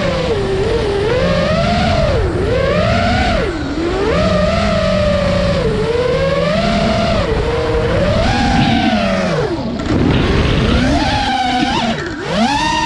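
FPV quadcopter's iFlight 2306 brushless motors spinning Gemfan 51477 props, whining up and down in pitch as the throttle is worked. The pitch drops sharply several times as the throttle is released, which is when the owner hears an unexplained noise.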